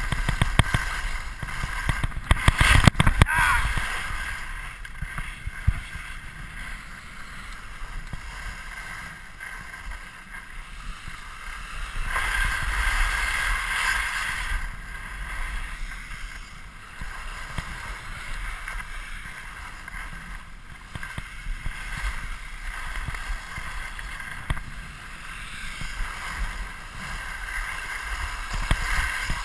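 Skis sliding and scraping over groomed piste snow during a downhill run, with wind rumbling on the microphone. The scraping swells louder a couple of seconds in and again about halfway through.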